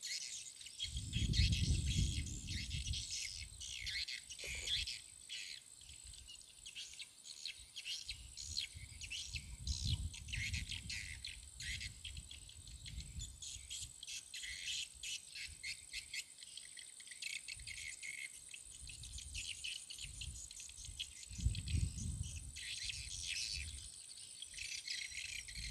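Insects chirping: a steady high buzz with dense, rapid chirps over it. Several low rumbles come and go, the loudest a second or two in and again about three-quarters of the way through.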